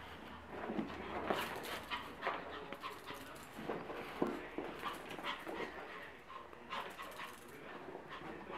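A small dog play-fighting with a cat, making short dog vocal sounds in irregular bursts, loudest about a second in and again about four seconds in.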